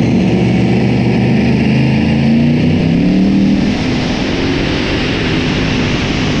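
Modified pulling tractor engine running hard at high revs, its pitch climbing about two to three seconds in and the sound easing slightly just before four seconds.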